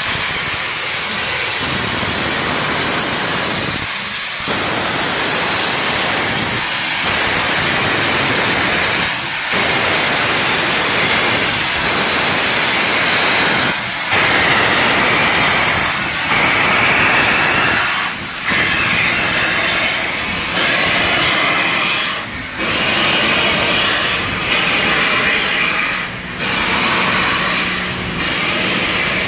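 Southern Pacific 4449, a GS-4 4-8-4 steam locomotive, moving close by with a loud steady rush of steam hiss. The hiss breaks briefly about every two seconds, a little more often toward the end.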